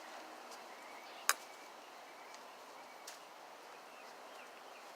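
Faint outdoor background noise with one sharp, short click a little over a second in and a fainter click about three seconds in.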